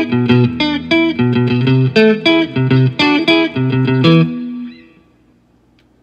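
Fender American Standard electric guitar played through a Blackstar Studio 10 6L6 tube amp with some reverb, picking a quick phrase of single notes, several a second. About four seconds in, a last note rings and dies away, and the guitar falls nearly silent.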